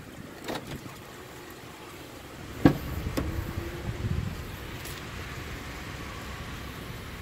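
A sharp clack of a pickup truck's door latch about two and a half seconds in, with a smaller click just after, over handling rustle and a steady outdoor hiss.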